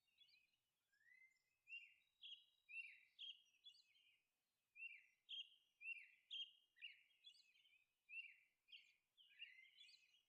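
Faint birdsong: a series of short chirping notes, roughly two a second.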